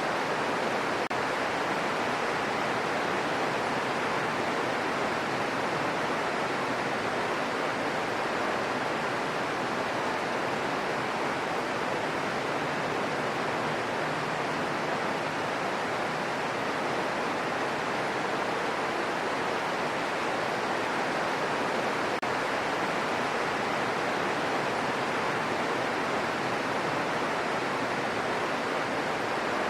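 Steady rainfall as an even, unbroken hiss, with no separate drops or thunder standing out.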